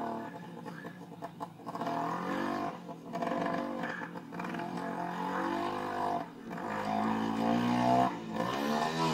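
Small motorbike engine running under load, its pitch climbing and falling over and over as the throttle is opened and eased off, with brief drops about six and eight seconds in.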